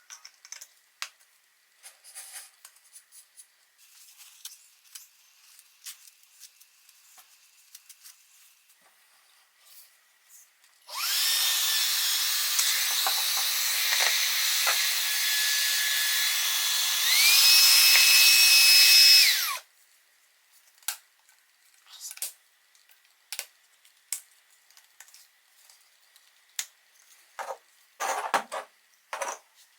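Xiaomi Mijia handheld cordless vacuum cleaner's motor switched on and running with a high whine for about eight seconds. Near the end it steps up to a higher, louder speed, then stops suddenly. Light clicks and knocks of the unit being handled come before and after.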